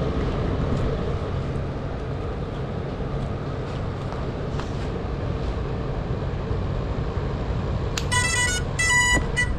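Geprc Cinelog 35 FPV drone's motors and propellers running steadily with a low hum. Near the end come two short electronic tone bursts, each about half a second long.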